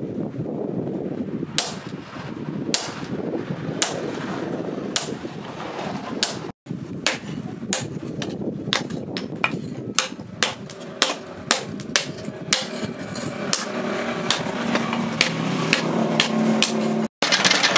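Hammer blows on red-hot spring-leaf steel held on an anvil, the metal ringing at each strike. The blows come about once a second at first, then faster, two to three a second. A steady hum runs underneath.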